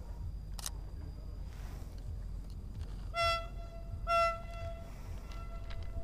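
Train sounding its horn in two short toots about a second apart, the second trailing off into a fainter held tone. A sharp camera shutter click comes near the start, and a few lighter clicks come near the end.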